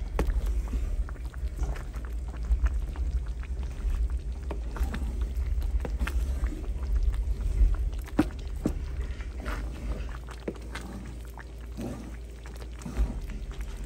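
Wooden slotted spatula stirring black glutinous rice as it bubbles in coconut milk in a metal pan: irregular wet scrapes and small knocks against the pan over a steady low rumble, easing off for a few seconds about ten seconds in.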